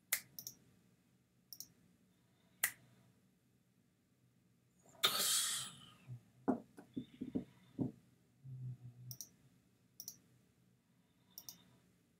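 Computer mouse clicks, sharp single clicks a second or two apart, as answers are chosen in a web-page quiz. About five seconds in there is a louder short rush of noise, followed by a quick run of soft low knocks.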